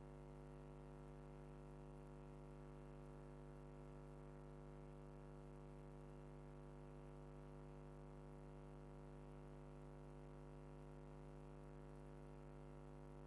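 Near silence: faint, steady electrical hum with several fixed tones over low hiss, unchanging throughout.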